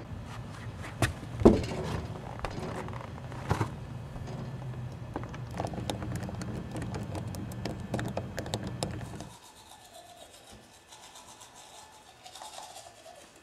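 Small metal clicks and scraping of a pick and tension tool worked in a doorknob lock, over a steady low hum, with one loud knock about a second and a half in. The sound drops away abruptly after about nine seconds, and faint scrubbing of a toothbrush on teeth follows near the end.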